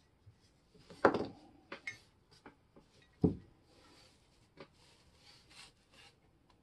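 Handling noise from a cast iron level on a workbench: two sharp knocks about two seconds apart as the level body is moved, with lighter clicks of small metal parts and rustling of the cloth in between.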